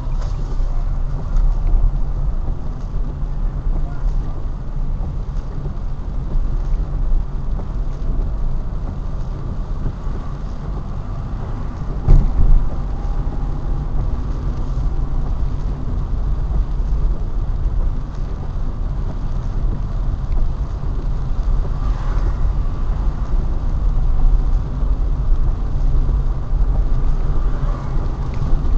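Steady low rumble of a car driving on a wet road, heard from inside the car, with one loud knock about twelve seconds in.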